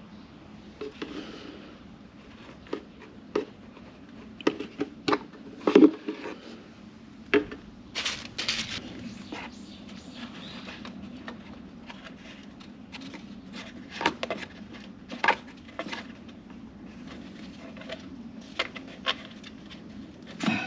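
Scattered clicks, knocks and clinks of hand tools and parts being handled, with a brief hiss about eight seconds in, over a steady low hum.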